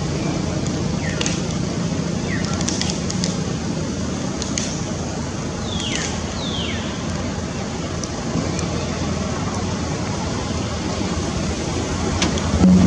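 Steady rushing outdoor background noise, with four short high calls that each fall in pitch: about a second in, two and a half seconds in, and a close pair around six seconds.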